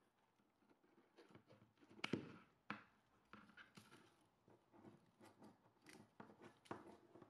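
Pruning shears snipping small twigs and dried leaves off a thin branch: faint, sharp snips, the loudest about two seconds in, with lighter clicks after it.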